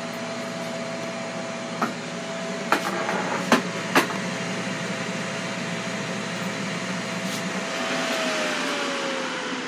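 Ninja Foodi XL grill's fan running with a steady hum after preheating, with four sharp knocks between about two and four seconds in. Near the end the lid is lifted and the fan winds down, its pitch sliding steadily lower.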